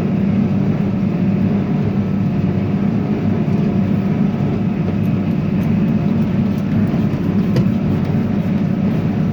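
Farm tractor engine running at a steady speed, a constant low drone.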